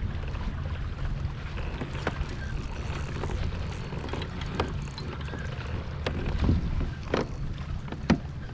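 Wind rumbling on the microphone aboard a fishing kayak, with about five sharp clicks and knocks from gear or the hull spread through it.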